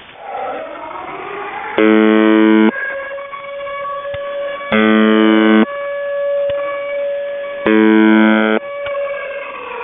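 UVB-76 'the Buzzer', the Russian shortwave channel marker, heard through a shortwave receiver: three harsh buzzes about a second long, roughly three seconds apart. Between them an air-raid siren jammed onto the frequency by pirates wails, falling and rising, holding a steady tone, then falling again near the end.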